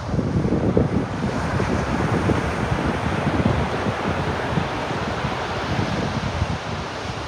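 Ocean surf: a wave breaks and its wash swells about a second in, then slowly eases. Wind buffets the microphone throughout, adding a low gusty rumble.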